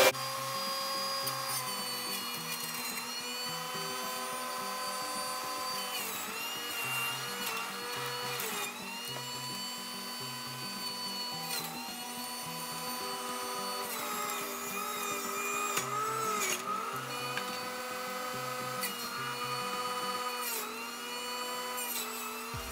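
Oster centrifugal juice extractor's motor running with a steady high whine. Its pitch sags briefly every few seconds as cucumber and celery are pushed down the feed chute and shredded. Background music plays under it.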